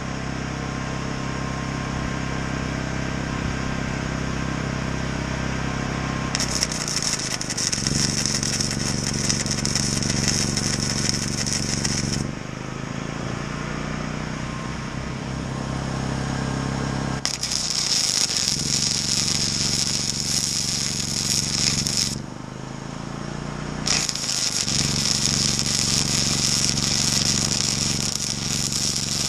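Arc welder crackling and sizzling in three runs of several seconds each while tack welding a steel frame, over a portable generator's engine running steadily underneath. The generator's engine note shifts as each weld puts load on it.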